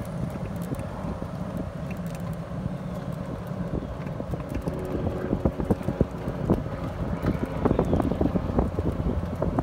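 Golf cart driving along a paved road: a steady motor hum, with wind buffeting the microphone. Short rattling knocks grow more frequent and louder from about halfway through.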